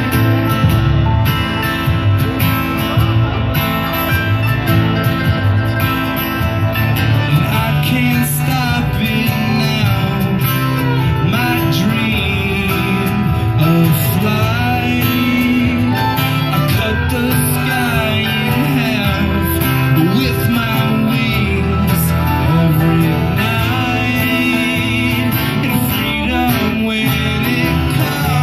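Live folk band playing: strummed acoustic guitar, fiddle, accordion and mandolin over a box-drum beat, with a man singing.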